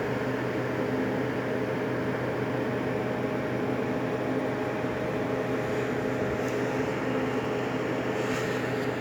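A steady machine hum with a low, even drone that does not change in level or pitch.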